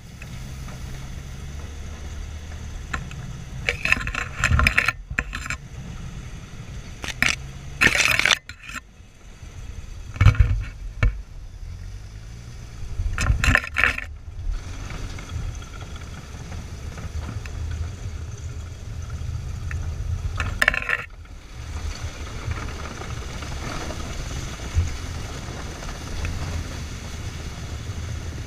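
Studebaker M29C Weasel's six-cylinder engine running with a steady low drone as the tracked vehicle drives through brush. Loud bursts of scraping and crashing come every few seconds as bushes scrape along the hull, and after about twenty seconds the sound turns steadier.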